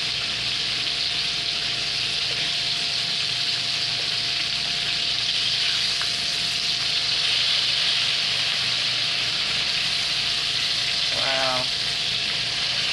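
Coated chicken breast tenderloins deep-frying in hot oil in a skillet, a steady sizzle throughout. A brief voice sound comes near the end.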